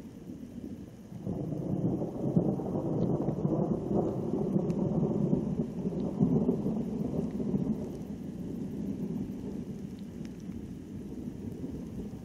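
Thunder from cloud-to-cloud lightning: a low rumble sets in about a second after the flash, rolls loudly for several seconds, then fades into a softer grumble.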